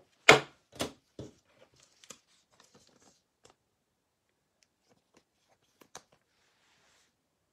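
Trading cards being handled: three sharp taps in the first second or so, the first the loudest, then faint light rustling and ticks, and one more click about six seconds in.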